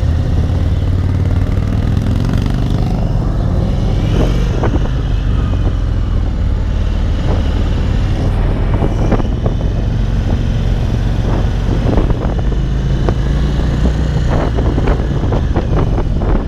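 Indian cruiser's V-twin engine pulling hard and rising in pitch over the first few seconds, then running steadily at cruising speed. Wind buffets the microphone throughout.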